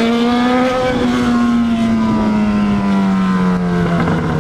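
Yamaha XJ6 motorcycle's 600 cc inline-four engine revving up after a missed shift from first to second lands in neutral, then its revs falling slowly for about three seconds, with a change near the end.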